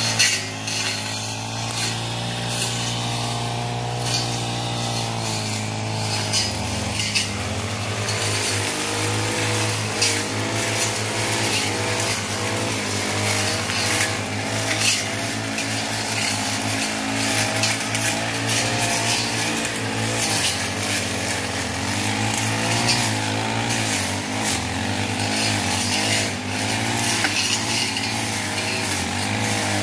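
Petrol two-stroke brush cutters running while cutting grass and scrub, the engine pitch wavering up and down with the load, with frequent sharp ticks and cracks as the blades strike stems.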